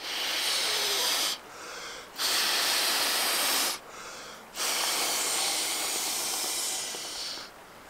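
A person blowing up an inflatable camping pillow by mouth: three long, airy exhalations into the valve, the last one the longest, with short pauses for breath between.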